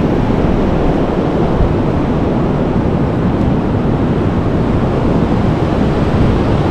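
Steady rush of surf breaking on the beach, mixed with wind buffeting the microphone.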